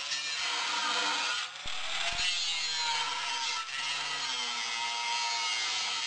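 Angle grinder cutting into a metal pipe post: a steady grinding hiss over the motor's whine, which sags and recovers in pitch as the disc bites. It eases off briefly twice, about one and a half and three and a half seconds in.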